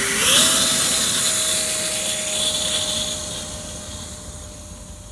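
Electric ducted fan of a Sebart Mini MB-339 model jet spooling up for its takeoff run: a whine that rises in pitch and then holds steady, with a strong rushing hiss, fading as the model rolls away down the grass strip.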